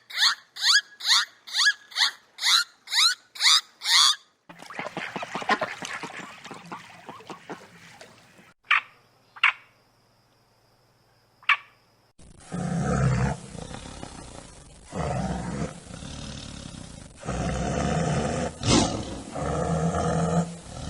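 A string of different animal calls one after another: a fast run of about a dozen short high calls in the first four seconds, a few sharp clicks near the middle, then long, deep calls over the last nine seconds.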